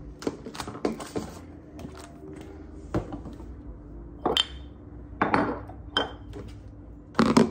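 Kitchen clatter of dishes and food containers being handled and set down on a countertop while food is put away: a string of knocks and clinks, a couple of them ringing briefly, the loudest near the end, over a steady low hum.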